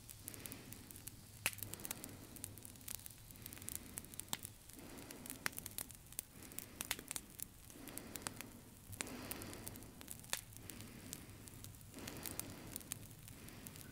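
Experimental soundtrack of processed breathing: low rushes of noise swell and fade every second or two, with scattered crackles and sharp clicks over them.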